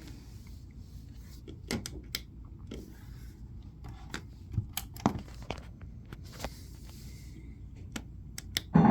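Scattered light clicks and knocks of things being handled, irregularly spaced, over a faint low steady hum, with a louder knock near the end.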